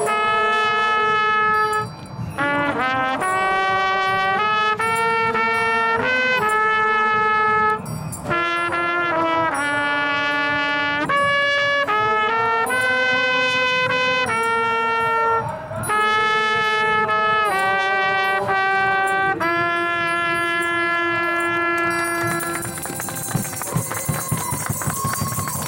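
Solo trumpet playing a slow melody of held notes, finishing on a note held for about three seconds. It is followed near the end by scattered clapping.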